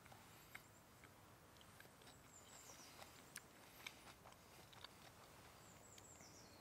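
Near-silent forest ambience: a faint steady hiss with a few small scattered ticks, and twice a faint high bird chirp falling in pitch.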